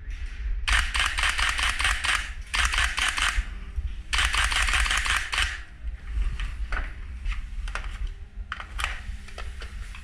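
Airsoft guns firing: three rapid strings of sharp, snapping shots in the first half, then scattered single sharp clicks over a low rumble.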